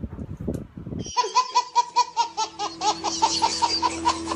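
Two women laughing hard for about a second, then a baby's high-pitched belly laugh, a run of short giggles about four a second over a steady low hum, cut off abruptly at the end.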